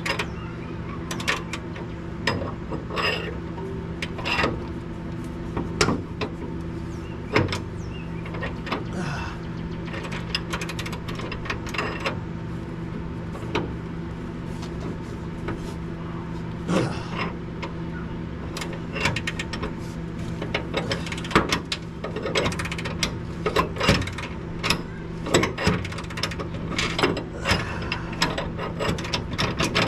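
Ratchet wrench clicking in irregular runs, with metal clinks, as bolts under a car are broken loose; the clicking gets busier in the second half. A steady low hum runs underneath.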